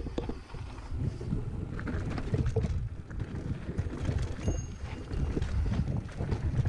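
Mountain bike ridden fast down a rough dirt trail: a steady rush of wind on the action camera's microphone over constant, irregular clatter and knocks of the tyres and bike on rocks and ruts.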